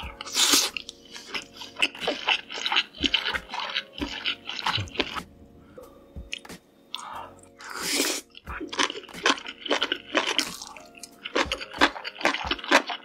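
Close-miked eating: wet chewing and smacking with many small sharp mouth clicks. There are two louder breathy bursts, about half a second in and about eight seconds in.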